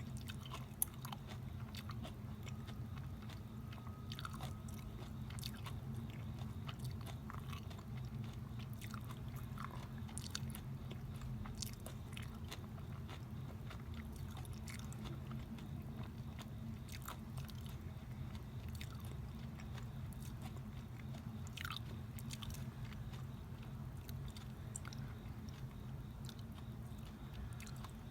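Close-up chewing of homemade grapefruit cheong (grapefruit preserved in sugar syrup), with many small mouth clicks over a steady low background hum.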